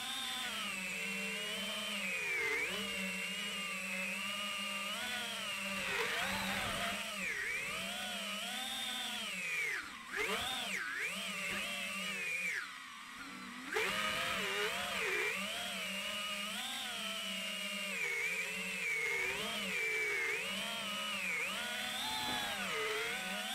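FPV quadcopter's four iFlight 2207 2450kv brushless motors whining as the throttle varies, the pitch sweeping up and down every second or so. The whine drops away briefly about ten seconds in and again for about a second near the middle, then climbs back sharply. A steady low hum runs underneath.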